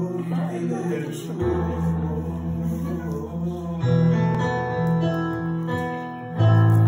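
Yamaha electronic keyboard playing held chords, the chord changing about every two to three seconds, with a louder chord near the end.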